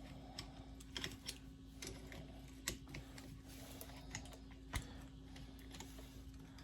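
Light, irregular clicks and taps of small metal parts being handled as an accessory rail mount is worked onto a pellet revolver, over a faint steady hum.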